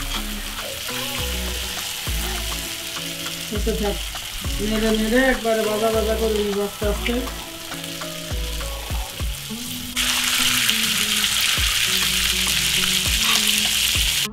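Cooked beef pieces sizzling in oil in a black karahi as they are re-fried, with the spatula knocking and scraping through the meat. The sizzle gets louder about two-thirds of the way through.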